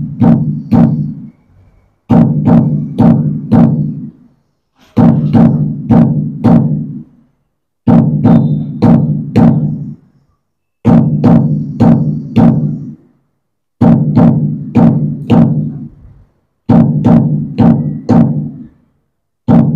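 Electronic dhol sound from a Roland HandSonic hand-percussion pad playing the standard Puneri dhol pattern as a recorded loop. A phrase of about five strokes with a deep bass repeats every three seconds, with short gaps between phrases.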